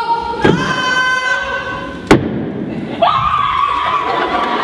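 Dance performance soundtrack: two heavy percussive hits about a second and a half apart, each setting off held, ringing pitched notes, with a new held note coming in about three seconds in.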